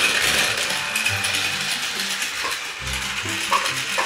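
Battery-powered Plarail toy Shinkansen train running on blue plastic track, its small motor and gearbox whirring with a steady rattling clatter and a few sharp clicks.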